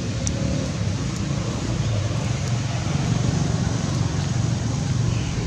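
Wind buffeting the microphone: a continuous, uneven low rumble.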